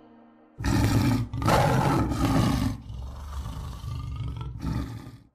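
A big cat roaring: a loud roar starting about half a second in, then a quieter, drawn-out growl, cut off abruptly near the end.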